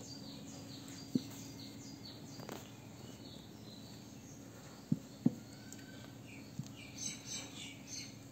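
Outdoor ambience: birds chirping in short, quick falling notes, thickening into a cluster of chirps near the end, over a steady low hum, with a few brief soft knocks.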